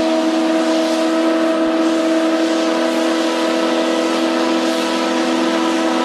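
The Delta Queen sternwheeler's steam whistle blowing one long, steady blast, several tones sounding together as a chord over a rush of escaping steam.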